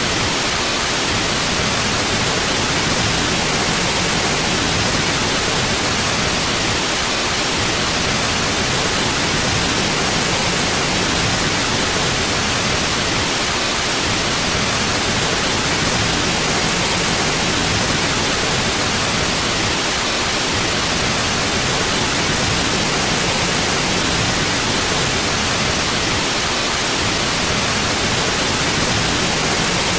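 Steady white noise: an even, unbroken hiss across the whole range of pitch.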